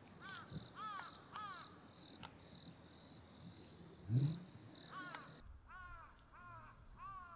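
Crow cawing over and over in quick runs of short arched caws. A short low sound, likely a breath or murmur, comes about four seconds in. The faint background hiss and high whine drop out about five seconds in.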